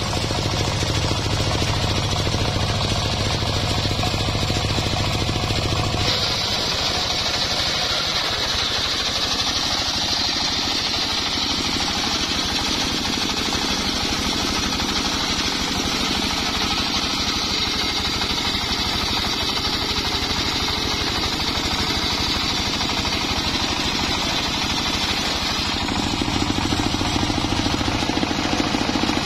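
Homemade engine-driven circular sawmill ripping an acacia log into boards: the engine runs steadily under load while the blade cuts with a continuous high-pitched sawing noise. The sound shifts about six seconds in and again near the end.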